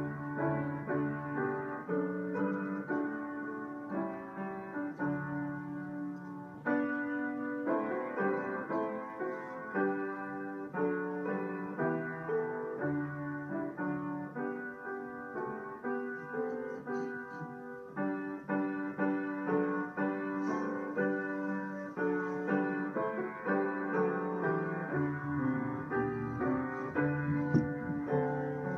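Solo piano playing a continuous run of notes and chords, each struck note ringing and fading.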